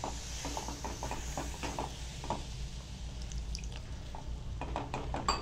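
A spoon stirring onion-tomato masala just thinned with a little water in a cooking pan, with a run of short, irregular scrapes and clinks.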